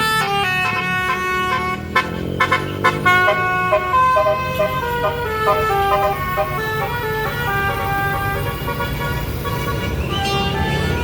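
Bus telolet horn of the old-style basuri type playing a tune: a run of steady horn notes stepping up and down in pitch, over the low running rumble of the bus engine, with a few sharp clicks about two seconds in.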